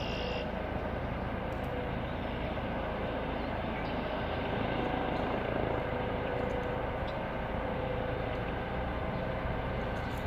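Steady engine drone with a constant low hum, holding at an even level without rising or falling.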